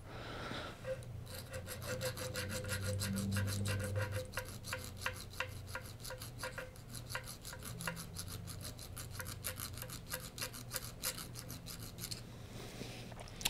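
Fine hand file drawn in light, gentle strokes across the edge of a small metal trigger part from a Typhoon X12 shotgun. A steady rasping of several quick strokes a second, stopping about a second before the end. The filing squares up a rough, jagged, out-of-square engagement face so the trigger breaks crisper.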